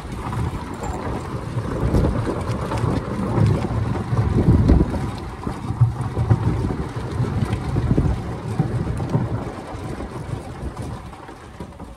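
Wind buffeting the microphone while riding in a moving open-sided golf cart, an uneven gusting rumble mixed with the cart's running noise, dying down near the end as the cart slows.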